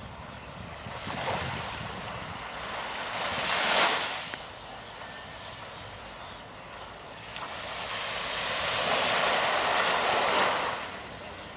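Sea waves washing in, two surges: a short one peaking about four seconds in and a longer one building through the second half before falling away.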